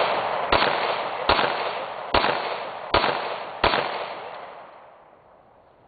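Semi-automatic pistol firing five shots in steady succession, a bit under a second apart, each with a long echo. The last shot is about two-thirds of the way through, and its echo fades out over the next second or so.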